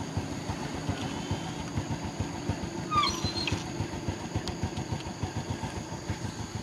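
Small motorcycle engine idling with a steady rapid putter. About three seconds in, a monkey gives a brief high squeal that rises and falls in pitch.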